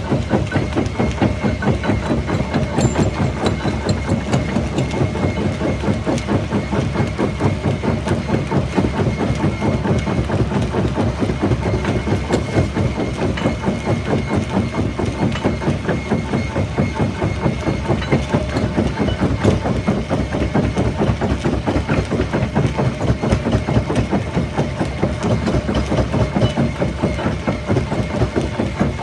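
Jaw rock crusher running under load: a steady heavy mechanical rumble with dense, rapid, irregular crunching and clatter of stone being broken, and a faint steady whine above it.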